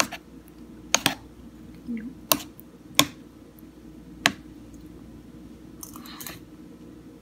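Metal spoon clinking against the bowl of noodle soup as it is stirred: a handful of short sharp clicks spaced irregularly, with a softer scrape near the end.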